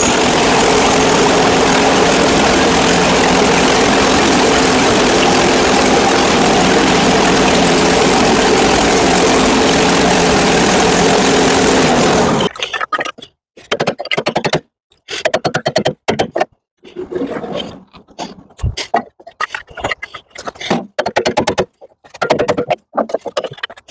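Woodland Mills portable band sawmill running steadily, its engine driving the band blade through a log. About halfway through, the sound drops out and turns into short, choppy pieces with gaps between them.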